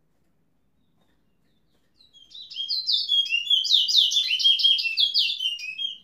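A towa-towa seed finch singing: a rapid run of high, quickly repeated whistled notes that starts about two seconds in.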